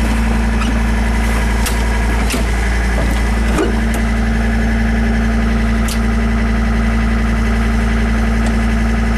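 Kubota L48 backhoe's diesel engine idling steadily, cold, just after a cold start on a freezing day. A few sharp clicks sound over the idle.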